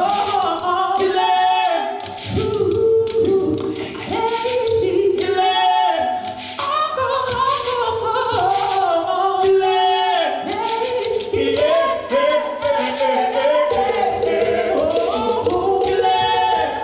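Several voices singing a melody together, live, with light, sharp percussive strokes running through it.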